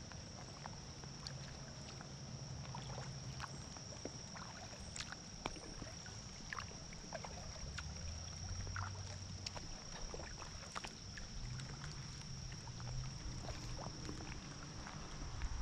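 Creek water lapping and trickling around an inflatable kayak as it drifts on a fast current, with many scattered small drips and ticks over a low rumble. A steady thin high-pitched whine runs throughout.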